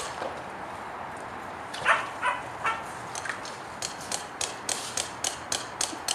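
A Cardigan Welsh Corgi gives three quick high barks about two seconds in. In the second half there is a rapid run of crisp clicking crunches, about three a second.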